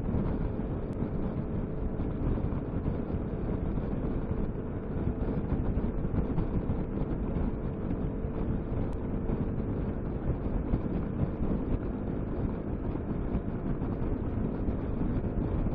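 Steady wind rush over the microphone with the constant drone of a Piaggio MP3 500 scooter's single-cylinder engine cruising at motorway speed.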